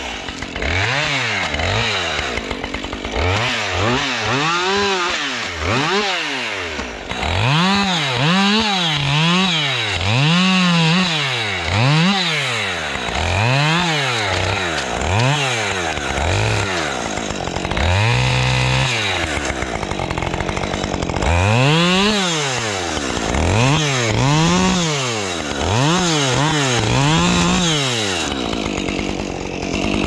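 Chainsaw limbing a fallen spruce, its two-stroke engine revving up into each cut and dropping back again about once a second, with one longer cut at full speed a little past the middle.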